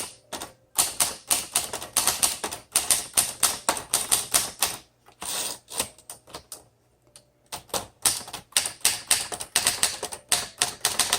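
1954 Smith Corona Skyriter portable manual typewriter being typed on: a quick run of key strikes, a pause of a couple of seconds about halfway, then another run of key strikes.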